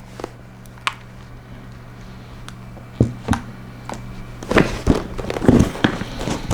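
A power cord and its packaging handled while being taken out of a box. A few sharp clicks and taps come first, then a denser run of knocks and rustling in the last two seconds, over a low steady hum.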